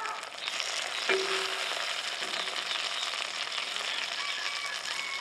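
Meat patties sizzling and crackling in a hot steel skillet. About a second in, a metal spatula clinks against the pan, which rings briefly, and there are a few lighter scrapes after.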